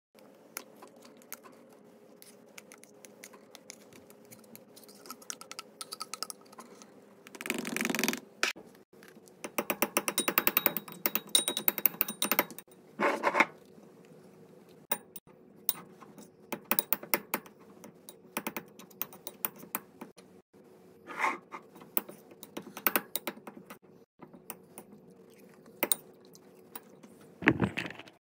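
Metal spoon clicking and scraping against a ceramic bowl as rice and canned chicken are mixed, in irregular clicks with a fast clattering run near the middle.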